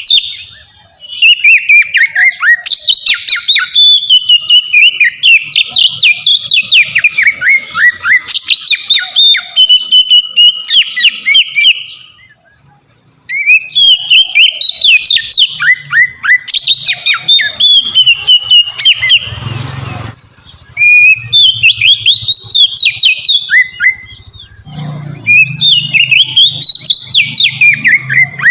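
Oriental magpie-robin singing a loud, continuous song of rapid, varied whistles and trills in long phrases, broken by brief pauses, the longest about a second near the middle.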